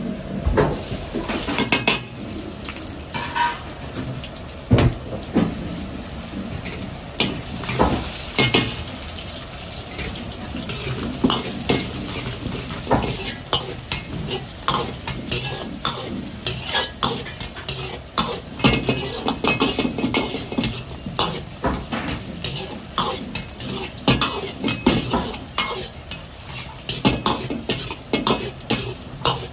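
Metal ladle repeatedly scraping and knocking against a steel wok while garlic, ginger and dried chilies sizzle in hot oil: aromatics being stir-fried.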